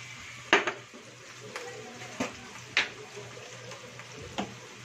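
A spoon clinking against dishes, about five short sharp clinks, the first the loudest, over a faint sizzle of chicken browning in oil in a frying pan.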